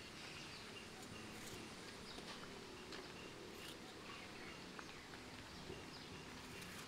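Faint outdoor background with scattered short, high chirps and clicks.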